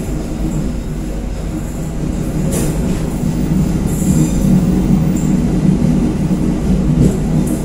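KA Pangrango passenger train running on curving track: a steady rumble of wheels on rails, with brief high wheel squeals about two and a half and four seconds in.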